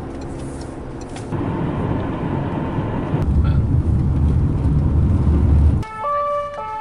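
Car road and engine noise heard from inside the cabin: a deep, steady rumble that grows louder about a second in and again around three seconds. Near the end it cuts off suddenly and an emergency vehicle's two-tone siren takes over.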